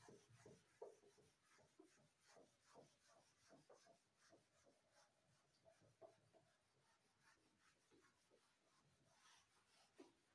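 Faint rubbing of a duster wiping a whiteboard clean, in many short, quick strokes.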